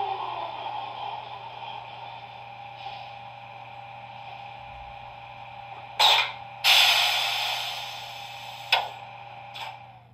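Sound decoder of a PIKO H0 model of a DB class 140 electric locomotive playing its motor sound through the model's small loudspeaker. A whine falls in pitch in the first half second and then holds steady over a low hum. From about six seconds in come several bursts of hiss, the second one fading slowly, and the sound stops just before the end.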